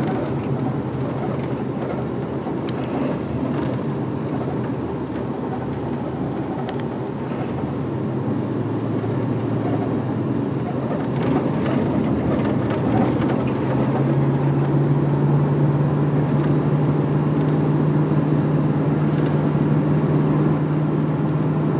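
Road noise inside a moving car's cabin at highway speed, with a steady low drone that grows louder about two-thirds of the way through.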